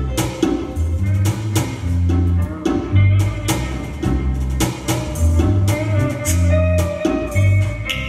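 A jazz combo playing live: an electric bass line, an electric guitar and a drum kit keeping a steady beat.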